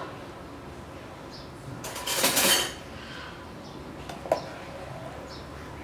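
A metal ladle working in an aluminium pot of simmering chicken broth: a loud scrape about two seconds in, then a single sharp clink against the pot a little after four seconds.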